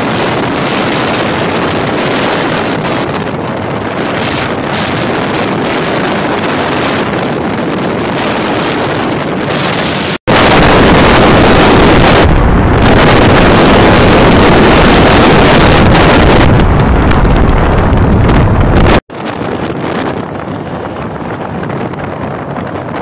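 Wind rushing over a phone's microphone on a moving motorcycle, with engine and road noise beneath. About ten seconds in it cuts abruptly to much louder, harsher buffeting, which stops just as abruptly about nine seconds later.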